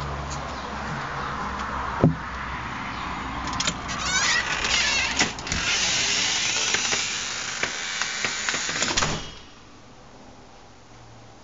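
A house door being worked: a sharp latch click, then a few seconds of squeaking and clattering as it is opened and passed through, cut off suddenly as it shuts about nine seconds in.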